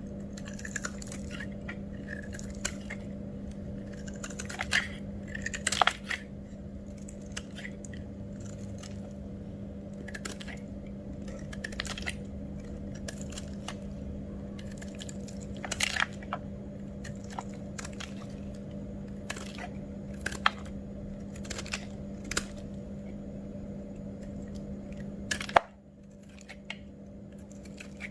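Knife cutting through bars of soap: sharp, crunchy cracks at irregular intervals over a steady electrical hum. The hum drops out abruptly about 25 seconds in.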